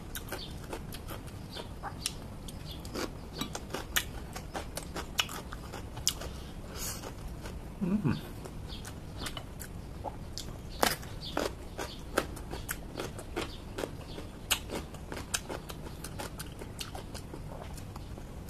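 A person chewing and biting crunchy raw vegetables close to the microphone: irregular wet crunches and mouth clicks, with a brief low hum of the voice about eight seconds in.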